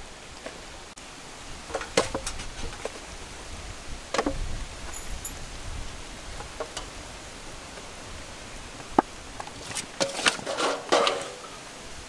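Raw seasoned ducks being handled and set down on a stainless steel tray: a few scattered soft knocks and clinks, clustered near the end, over a steady outdoor background noise.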